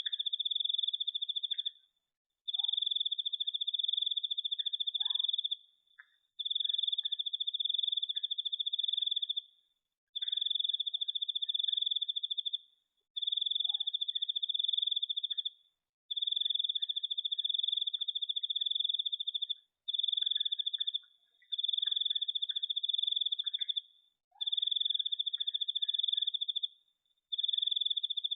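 A cricket trilling: one high, steady-pitched trill held for two to four seconds at a time, broken by short pauses, repeating over and over.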